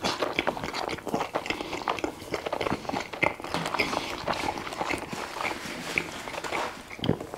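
Close-miked chewing of a Greek pita gyros stuffed with fries: a steady run of small, irregular wet mouth clicks and soft crunches.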